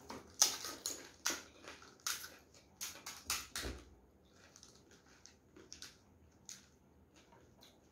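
Crisp, hollow pani puri shells being cracked open with fingertips and crunched in the mouth: a quick run of sharp crackles over the first few seconds, then only scattered faint cracks.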